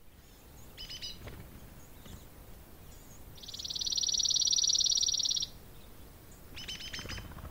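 A high, rapid trill from a small animal, lasting about two seconds in the middle, with short chirping calls about a second in and again near the end.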